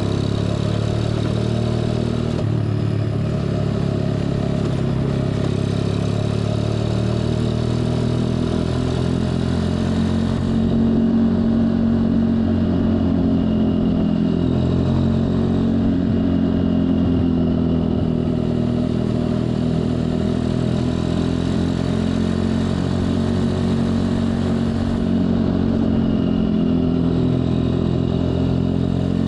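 Four-stroke Honda Dax-style minibike engine running under way through an aftermarket OVER exhaust, its note rising and falling with the throttle.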